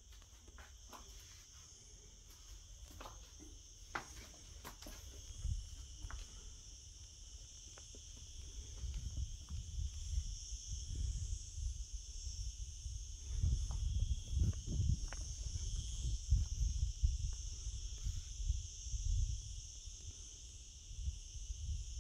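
A steady, high-pitched chorus of insects chirring without a break. A few light knocks sound in the first few seconds. From about eight seconds in, an irregular low rumble builds and becomes the loudest sound.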